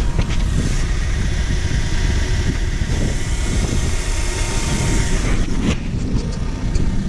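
2005 Nissan Altima's four-cylinder engine idling steadily on freshly changed oil, running to build oil pressure so the new filter and drain plug can be checked for leaks.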